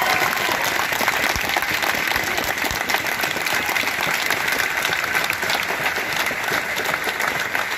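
Crowd applauding steadily for several seconds.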